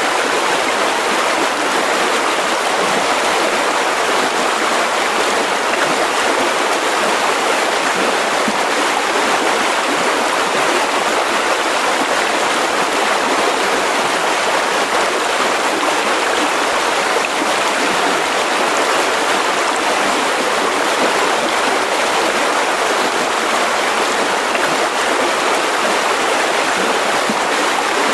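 Mountain river flowing over rocks: a steady, even rushing of water.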